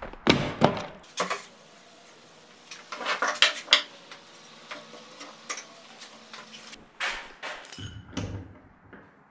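Wooden boards and a metal straight edge knocking and clattering as they are handled and laid out on a plywood panel over sawhorses. The knocks come in a few short bursts with quieter stretches between.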